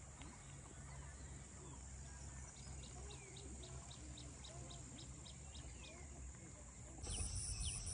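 Faint countryside ambience by a lake: a steady high insect buzz with birds calling, including a short chirp repeated about three times a second for a few seconds. Near the end it gives way to a louder, pulsing insect chirring.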